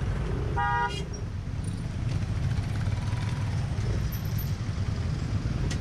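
Yamaha NMAX scooter's single-cylinder engine and road noise, a steady low rumble while riding slowly through traffic. A short high-pitched sound a little under a second in.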